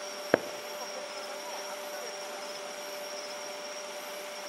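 A single short, sharp boom about a third of a second in, the report of a distant aerial firework shell, over a steady high-pitched background tone and faint hiss.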